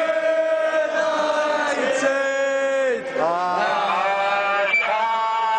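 A crowd of football supporters, mostly men, chanting a terrace song together in long held notes, breaking off about three seconds in before the next line.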